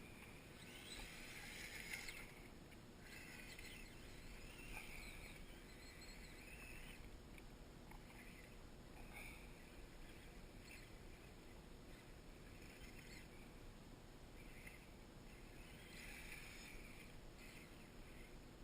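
Faint, muffled whine of a Kyosho Blizzard EV's electric motor and drivetrain, coming in short bursts that rise and fall in pitch as the RC snow vehicle is throttled on and off.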